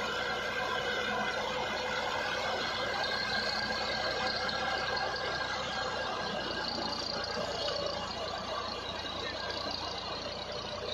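Massey Ferguson 350 tractor's three-cylinder diesel engine running steadily under a heavy load, pulling an overloaded straw cart hard enough to lift its front wheels.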